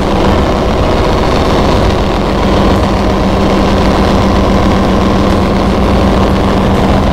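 Large diesel engine in a ship's engine room running steadily: a loud, continuous machinery drone with a steady hum.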